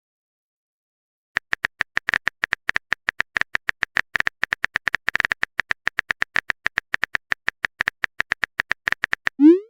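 Phone-keyboard typing sound effect: a fast, uneven run of short clicks starting a little over a second in, as a text message is typed out. It ends in a short rising swoosh, the cue for the message being sent.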